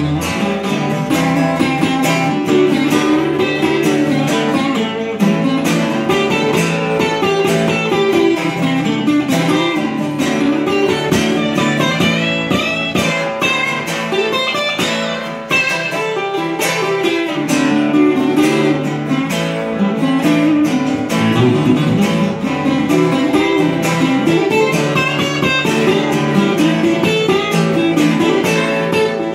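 Two acoustic guitars playing together, picked and strummed, in an instrumental passage without singing.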